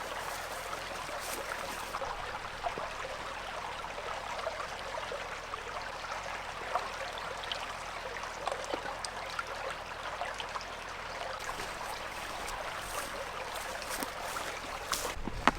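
Steady running water of a small stream, with a couple of sharp knocks near the end.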